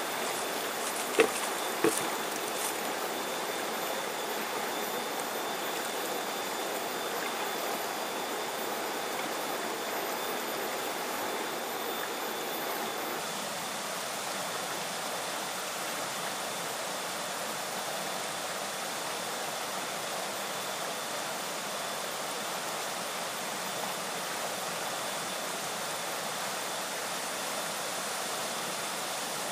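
Shallow river rushing steadily over rocks. Two brief knocks come about a second in.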